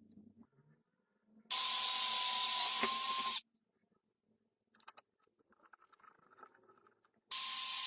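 A power tool runs in two bursts, about two seconds and then about a second, each starting and stopping abruptly with a steady whine over a hiss. Faint clicks and handling sounds come in between.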